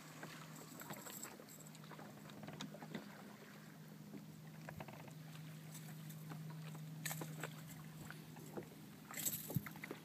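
Boat motor running at steady trolling speed, a low even hum that fades about seven seconds in, with small clicks and knocks of gear being handled in the boat.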